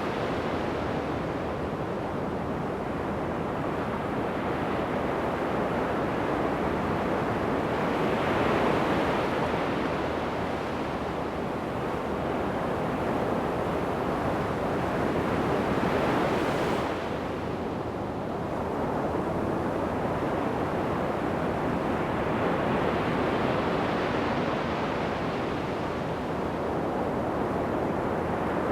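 Ocean surf on the shore: a steady wash of waves, swelling as a wave breaks roughly every eight seconds.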